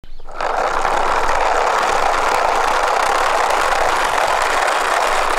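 Plastic wheels of a toy car-carrier truck rolling steadily over coarse asphalt, a continuous gritty rolling noise that starts a moment in.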